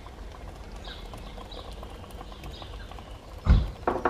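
Two knocks of a wooden spatula against a steel cooking pot: a heavy thump about three and a half seconds in, then a lighter knock just after. Under them is a quiet, steady background hiss.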